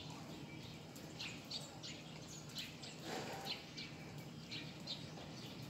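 Small birds chirping outdoors, many short high chirps a few times a second, over a faint steady background noise.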